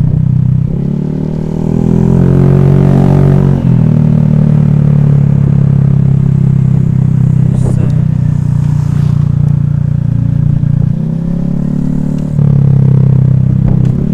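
Honda Vario scooter's single-cylinder engine running under way, its note rising and falling with the throttle. It eases off briefly about a second in and again near the end, then picks back up.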